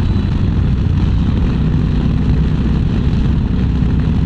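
Motorcycle engine running steadily at an even speed while riding.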